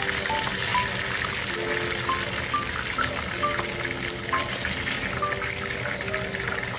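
Chicken pieces deep-frying in hot oil, a steady crackling sizzle, under a light background melody of short plucked notes.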